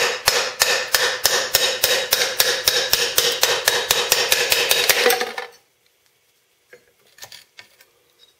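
Hammer tapping a steel punch in quick, even light blows, about four or five a second with a metallic ring, driving the old needle bearings out of an MTD riding mower's variable speed drive pulley. The tapping stops about five seconds in, followed by a few faint clicks as the pulley is lifted.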